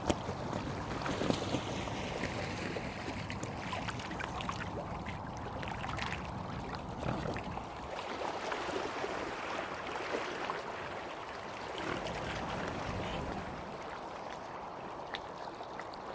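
A boat running on the water, a steady wash of motor and water noise that eases slightly near the end.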